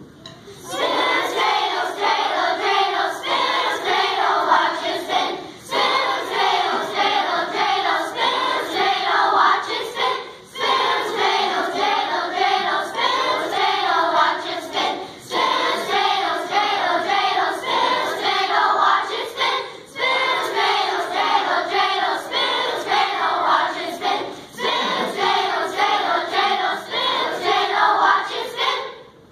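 Children's choir singing together in phrases of about five seconds, with short breaks between them. The singing begins about a second in and stops near the end.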